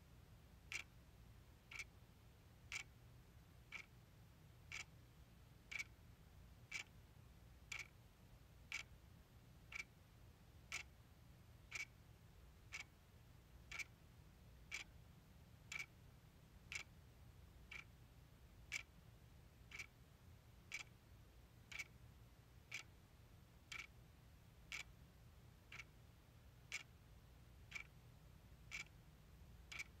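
Clock ticking faintly and evenly, one sharp tick a second, over a faint low hum.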